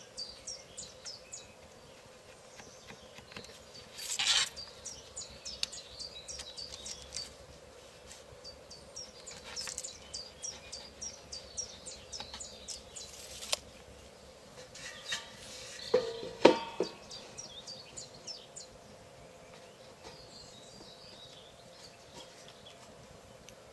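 Quiet workbench handling while a plywood board is marked out with a pencil and a steel tape measure. There is a scrape about four seconds in and a few sharp clacks about sixteen seconds in. Behind it runs a series of rapid, high, falling chirps from a small bird.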